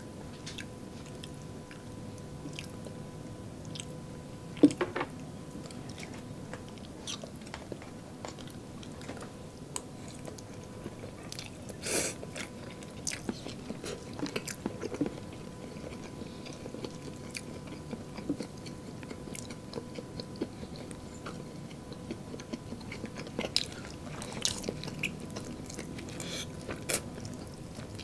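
Close-miked eating: crunching bites and chewing of fried chicken and chicken nuggets, as irregular clicks and crunches, the sharpest about five seconds in and again around twelve seconds in.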